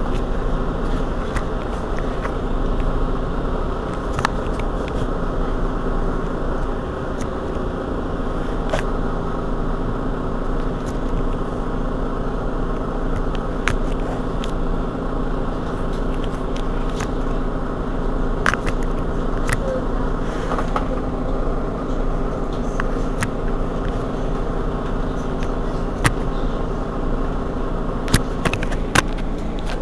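Mercedes-Benz Citaro G C2 articulated bus standing at idle: a steady hum with several even tones and a low rumble, broken now and then by short sharp clicks.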